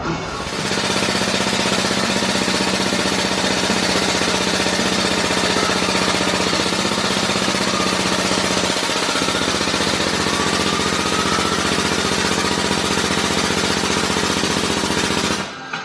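Pneumatic air hammer running continuously on sheet metal, a loud rapid hammering that holds steady for about fifteen seconds and stops just before the end.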